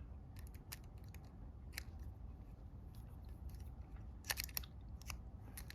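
Faint metallic clicks and scrapes of a homemade pick working the levers inside an Abus 45mm lever padlock, with a short cluster of louder clicks about four seconds in.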